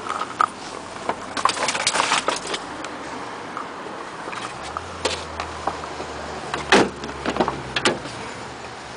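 Camera handling noise: scattered clicks, knocks and rustles over a steady background hiss, with the loudest knock about seven seconds in. A faint low hum sits underneath through the second half.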